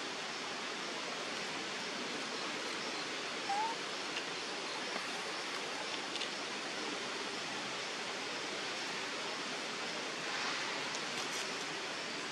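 Steady hiss of outdoor ambience, with one short rising chirp about three and a half seconds in and a few faint clicks.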